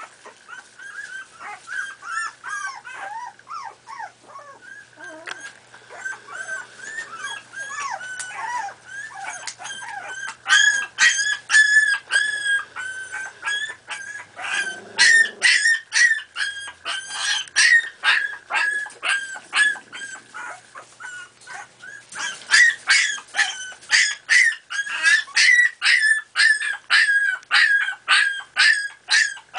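Miniature pinschers yipping and whining in high-pitched calls. The calls are drawn-out whines at first, then quick repeated yips about three a second, loudest from about ten seconds in and again near the end.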